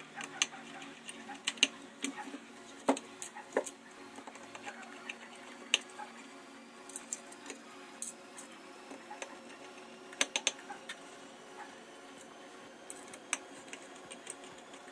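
Irregular small clicks and ticks of a Phillips screwdriver turning screws that fasten a hard drive into a NAS drive tray, with a few sharper clicks about 1.5 seconds in and again about 10 seconds in.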